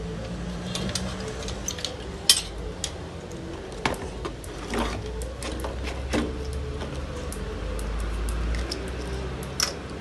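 Small irregular clicks and taps of wires and spade connectors being handled and pushed onto a microwave oven control board's terminals, with one sharper click a couple of seconds in, over a low steady hum.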